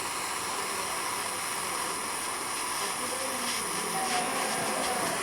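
Jeweller's soldering torch flame hissing steadily while it heats a chain link to flow the solder at the joint.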